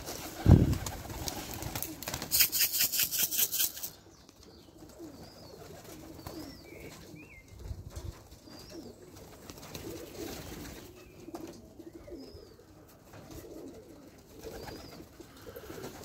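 Domestic pigeons' wings clattering in a rapid flapping run for about two seconds near the start as birds take off or land close by, then faint pigeon cooing with small birds chirping now and then.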